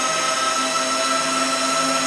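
A motor running steadily, with a constant whine of several steady tones over a hiss.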